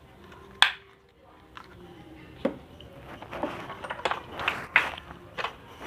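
A sharp click, another about two seconds later, then a run of clattering taps and knocks of hard objects being handled.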